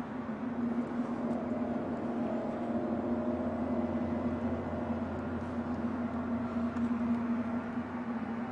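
Steady low droning hum with a held tone and fainter higher tones over a noisy haze: an unexplained drone, one of the mysterious sounds recorded over a city at night.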